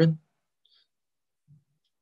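The last of a spoken word, then near silence with a couple of very faint, brief sounds.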